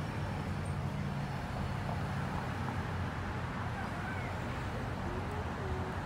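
Steady low rumble of road traffic, with faint scattered bird calls over it.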